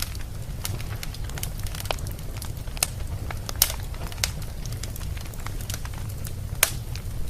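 Wood fire burning in a fireplace: a steady low rumble of flames with frequent sharp crackles and pops, a few louder snaps standing out.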